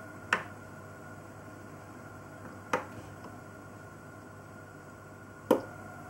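Three sharp clicks a couple of seconds apart, the last the loudest: the start button of a Bosch Tassimo Charmy pod coffee machine being pressed, without the machine starting up.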